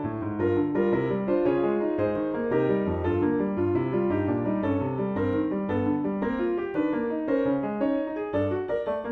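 MuseScore 4's sampled grand piano playing back a MIDI file: a busy two-handed passage of quick running notes over a moving bass line, without a break.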